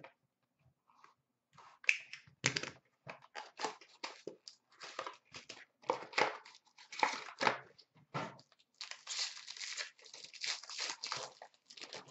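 A hockey card box being opened and its card pack torn open by hand, in irregular bursts of tearing cardboard and crinkling wrapper, with the longest run of crinkling in the last few seconds.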